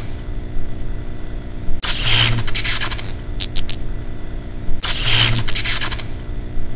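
Intro sound effects: a steady low electric-style hum with two loud crackling, hissing bursts about three seconds apart, about two and five seconds in, and a few quick clicks between them.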